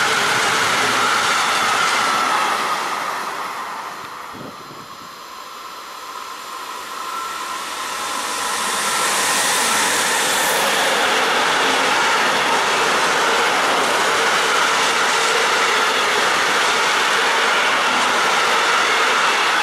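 Freight train wagons rolling past, their noise fading a few seconds in. After a quieter stretch, an electric locomotive comes past close by about nine to ten seconds in, followed by its string of trailer-carrying pocket wagons, whose steady rolling noise stays loud to the end.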